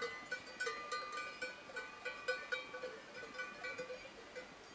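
Cowbells on a walking herd of cattle clanking irregularly, many overlapping ringing strikes.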